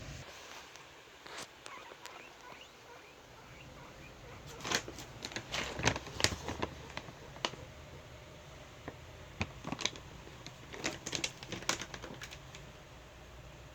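Guinea pigs eating dry pellet food: irregular runs of crisp crunches and clicks, in two busy bursts with quieter gaps between.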